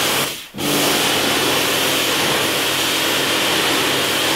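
Electric pressure washer at its highest pressure, its water jet hissing against a boat hull over the steady hum of the pump. The jet cuts out for a moment about half a second in, then resumes and runs steadily.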